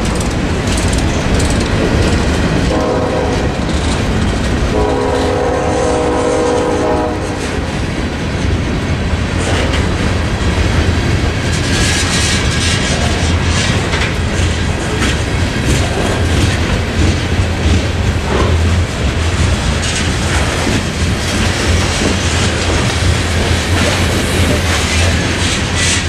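Freight cars rolling past close by, wheels rumbling and clacking over the rail joints. Early on a train horn sounds twice, a short blast and then a longer one of about two and a half seconds.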